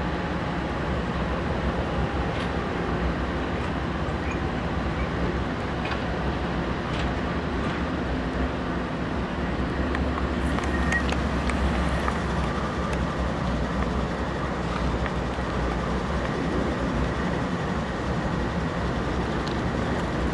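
Freight train at a grade crossing: a steady diesel rumble with scattered short metallic clicks, the low rumble swelling a little midway.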